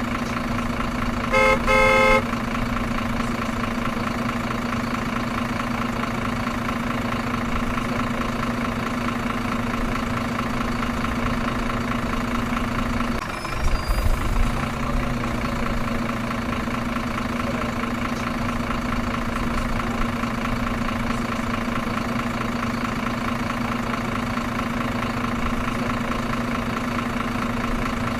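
Truck engine idling steadily, with one short, loud horn honk about a second and a half in and a brief low rumble about halfway through.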